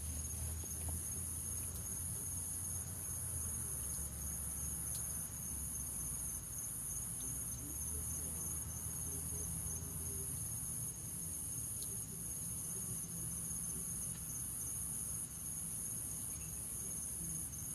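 A cricket chirping steadily, a continuous high trill, over a low steady hum.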